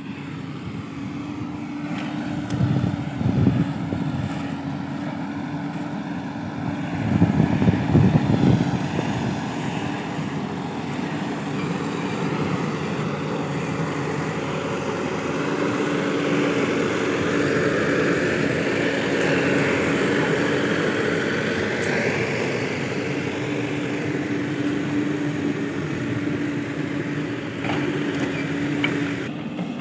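Diesel engines of a backhoe loader and tractors running steadily while the loader works, with loud rough surges about 3 and 8 seconds in and a higher whine that rises and falls midway.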